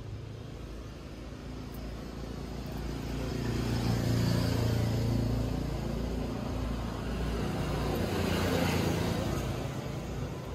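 Hum of a motor vehicle's engine going by, growing louder about four seconds in, swelling again near the ninth second, then fading.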